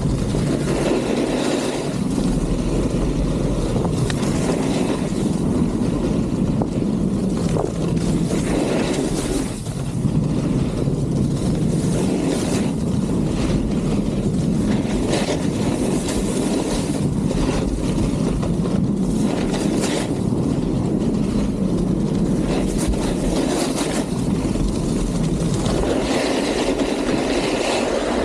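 Steady rush of wind buffeting the camera's microphone at speed, mixed with the scrape of a snowboard sliding over groomed piste snow.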